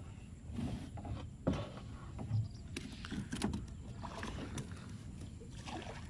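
Water sloshing and knocking against a small wooden boat, with irregular short bumps and splashes.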